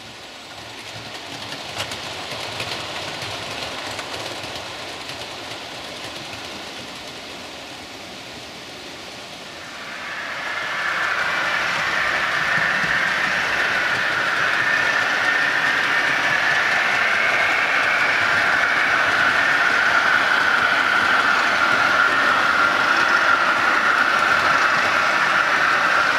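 Model railway trains running on the layout track, their motors and wheels giving a steady running noise that grows louder about ten seconds in, with a steady whine.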